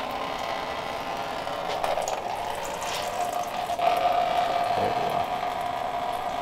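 Thin, runny oil pouring steadily out of an old car engine into a catch pan, a continuous liquid pouring sound. The oil is coming from the engine's rear seal because the oil pan is badly overfull.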